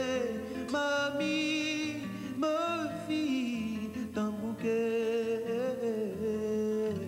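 A man singing long held notes with vibrato, accompanied by his own acoustic guitar.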